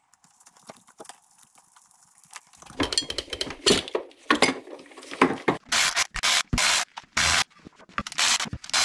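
Snowmobile carburetors being taken off the engine: near quiet with a few faint clicks, then from about two and a half seconds in, irregular rubbing and scraping as the carbs are worked loose. In the second half comes a string of short, even bursts of about a third of a second each from a hand-held power tool on the carb mounting.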